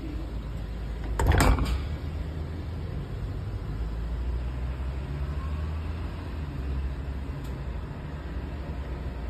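A door shutting with a clattering thud about a second in, followed by a steady low rumble.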